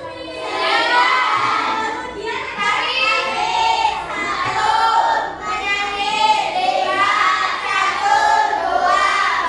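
A group of children singing together in unison, in phrases of a second or two.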